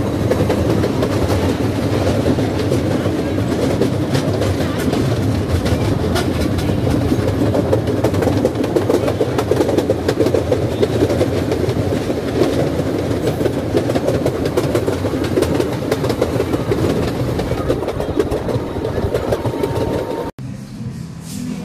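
Small open-air tourist train running along its track, heard from on board: a steady rumble and rattle of wheels on rails. The sound cuts off sharply about twenty seconds in, leaving something much quieter.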